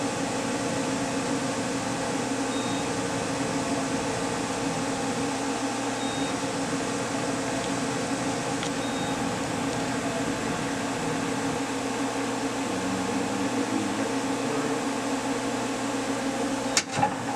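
Steady machine hum of a powered-up Okuma Crown L1060 CNC lathe, made of several fixed tones, with a short faint beep every few seconds. There is a brief knock near the end.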